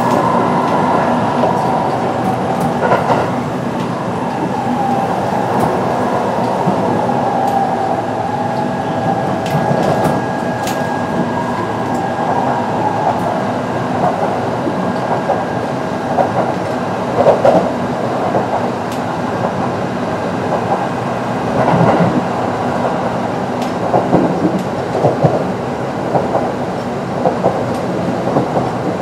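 Kintetsu 9020 series electric train with Mitsubishi IGBT-VVVF traction equipment running at speed: a steady rumble with a steady whine from the traction motors. In the second half the wheels clack sharply over rail joints several times.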